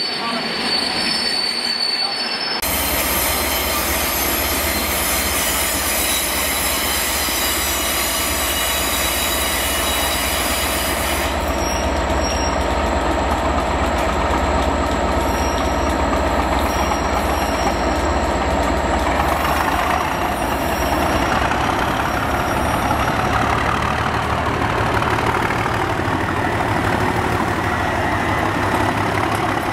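Class 37 diesel locomotive with coaches running into the platform, its English Electric engine giving a steady low rumble from a couple of seconds in, with wheel squeal from the train on the rails. The engine grows fuller towards the end as the locomotive passes close.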